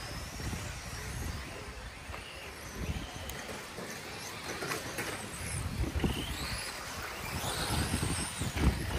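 Electric RC trucks' motors whining, rising and falling in pitch as they speed up and slow down, over a rough low rumble with a few dull thumps.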